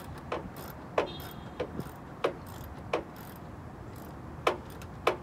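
A series of sharp mechanical clicks, about seven at uneven intervals of half a second to a second, as screws are tightened to fasten a rear spoiler onto a car's trunk lid.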